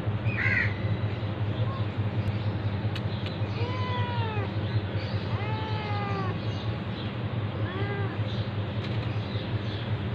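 Ginger tabby cat meowing three times: two long, drawn-out meows and a shorter third one. A short high call sounds about half a second in, over a steady low hum.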